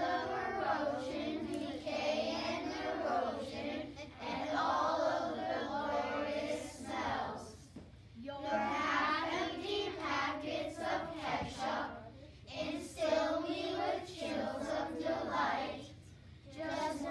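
A group of children singing together in unison, breaking off briefly about eight seconds in and again near the end.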